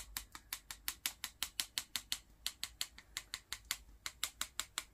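Rapid light clicking taps, about six a second with short pauses, from a hand-held kitchen sieve being tapped to dust powder over the cream.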